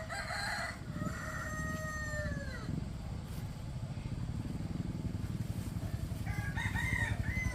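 A rooster crows: one long held call that drops away at the end. Underneath, an engine's low throb gets louder toward the end.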